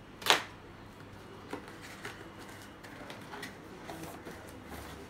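Cardboard product box being handled and opened: one short, loud scrape near the start, then a few light taps and soft rustling of the packaging.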